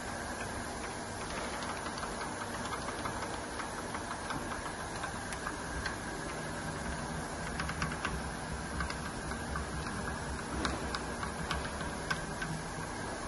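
Steady mechanical hum with scattered light ticks and clicks, which come more often in the second half.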